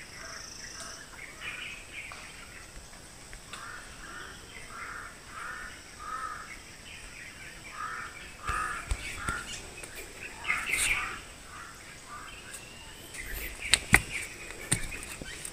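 A bird calling outdoors in a long run of short repeated calls, about two to three a second, with pauses between the runs. Near the end come a few sharp, loud knocks.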